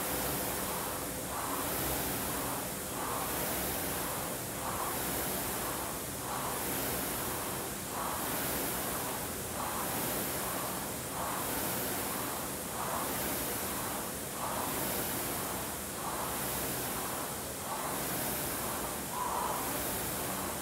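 Air-resistance rowing machine's flywheel fan whooshing, surging with each drive stroke in an even rhythm of about one stroke every 1.7 seconds during a hard 2000 m row.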